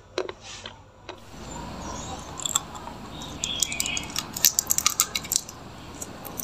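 Red foil wrapper on a round candy crinkling against the lips and teeth, a dense run of sharp crackles lasting about three seconds through the middle.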